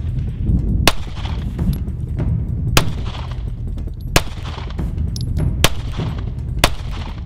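Smith & Wesson M&P Shield 2.0 9mm subcompact pistol firing five single shots, one to two seconds apart.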